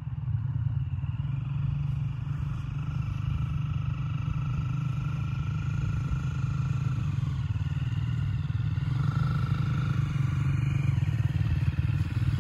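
Two dirt bikes' engines running as they ride along a dirt track, growing gradually louder as they approach.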